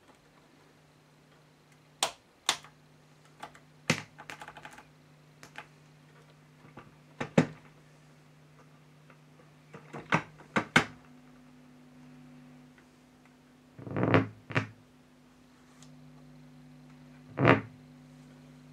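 Irregular sharp knocks and clicks from handling the record player's deck and cartridge, over a steady low hum from the powered-up set. The loudest knocks are a cluster around the middle and one near the end.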